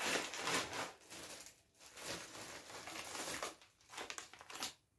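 Plastic food packets crinkling and rustling as they are handled, loudest in the first second, then in softer bursts with short pauses.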